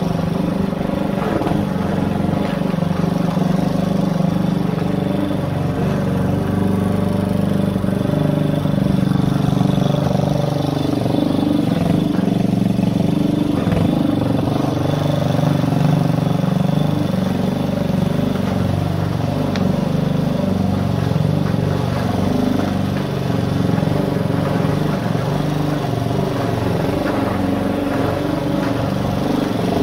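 Petrol walk-behind rotary lawn mower engine running steadily while cutting long grass, its note wavering and sagging a little at times under the load of the cut.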